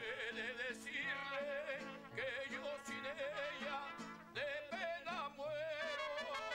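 Mariachi serenade: a man sings a ranchera in a full, wavering vibrato, backed by a mariachi band's guitars and a steady, rhythmic bass line.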